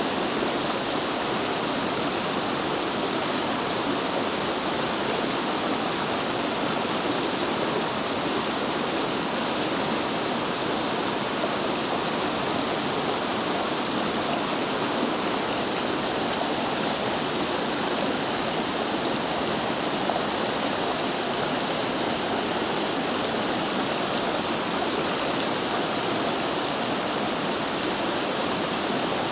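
Steady rush of water tumbling over the rocks of a stream, an even hiss with no breaks.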